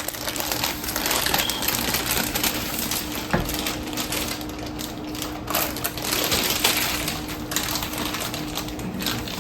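Plastic marshmallow bag crinkling and rustling as it is handled and opened.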